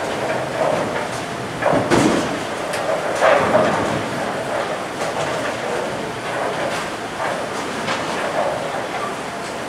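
Bowling alley din: a steady rumble of balls rolling and pinsetter machinery across many lanes, with sharper clatters about two and three seconds in.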